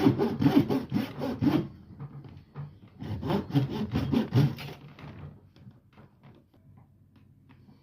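Handsaw cutting wood in quick back-and-forth strokes, about four a second. Two runs of sawing with a short pause between them, then a few lighter strokes and taps trailing off.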